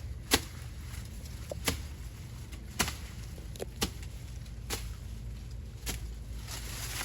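A tool chopping at sugarcane: six sharp strikes about a second apart, over a steady low rumble.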